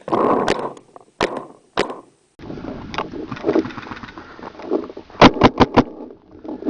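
Paintball marker firing: a few single shots in the first two seconds, then a quick burst of four shots about five seconds in, with rustling and movement noise between.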